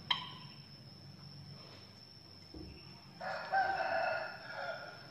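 A rooster crows once, starting about three seconds in and lasting about a second and a half. Right at the start a metal spoon clinks once against the ceramic plate, with a short ring.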